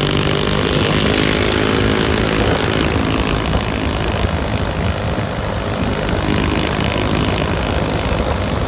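A tour bus engine running loud and close. Its engine tone fades about two and a half seconds in, leaving a steady rushing noise.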